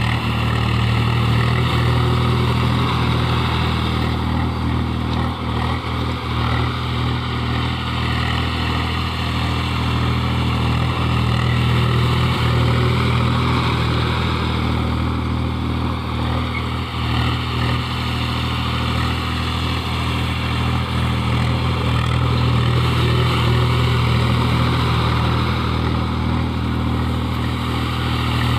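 Farm machine's engine running steadily through paddy threshing, a low hum with mechanical clatter that swells and eases slightly.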